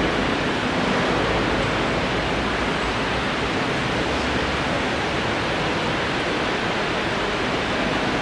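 Steady, even hiss of background noise with no voice, as from an amplified sound system or recording between phrases of chanted recitation.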